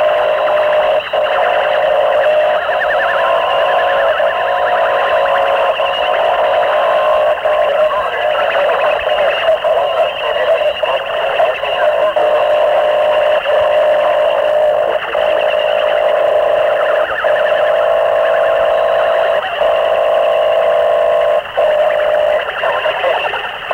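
Harsh noise music: a dense, distorted wall of effects-processed noise made with homemade electronics and microphones, squeezed into a narrow midrange band like a lo-fi cassette, with short breaks every few seconds.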